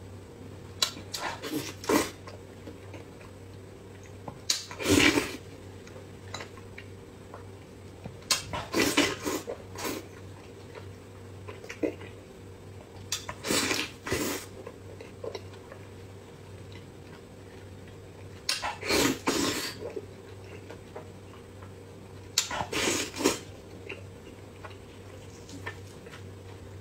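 Close-miked eating: bites and wet chewing and smacking of braised pork belly, coming in loud clusters every few seconds. A steady low hum runs underneath.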